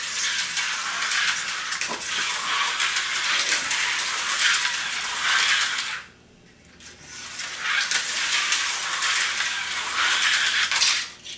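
Tyco HO-scale slot cars running around a plastic slot track, a continuous rattling, clicking clatter of the cars on the track sections. It stops for about a second just past halfway, while the cars sit still, then starts up again.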